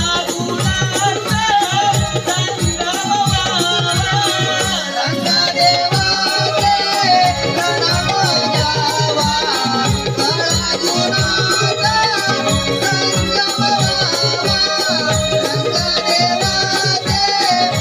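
Konkani Naman folk music: a drum keeps a steady beat under rattling percussion while a high-pitched voice sings a winding melody.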